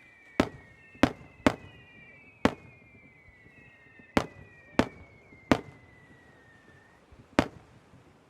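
Fireworks bursting: eight sharp bangs at uneven intervals, three of them close together in the first second and a half. Several long whistling tones overlap and slowly fall in pitch, fading out about a second before the last bang.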